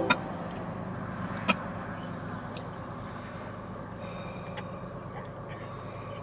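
Steady low rumble of a diesel freight train nearby, with two sharp clicks, the second about a second and a half in.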